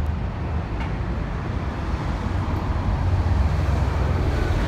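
Street traffic: a steady low rumble of vehicles going by, swelling a little about three seconds in.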